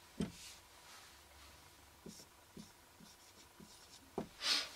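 Faint felt-tip marker strokes on a whiteboard: a few short, separate scratches, then a longer, louder stroke near the end.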